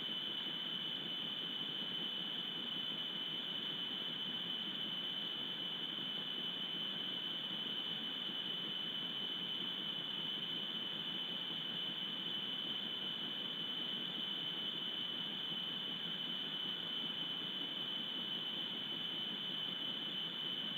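Steady hiss with a constant high-pitched whine that never changes: electronic noise from the wildlife camera's audio, with no sound from the animals.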